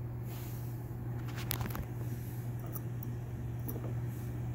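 A few faint clicks and taps of the small folding metal camping stove being handled, its pot-support arms being moved, over a steady low hum.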